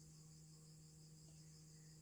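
Near silence: a faint steady low hum under a faint, high, evenly pulsing trill of crickets.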